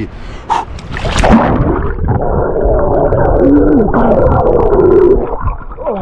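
A splash about a second in as a man plunges into cold seawater. Then several seconds of muffled, gurgling yelling and gasping at the cold, with the camera at the water surface.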